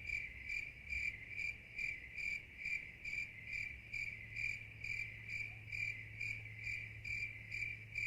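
Cricket chirping in a steady, even rhythm of about two high-pitched chirps a second.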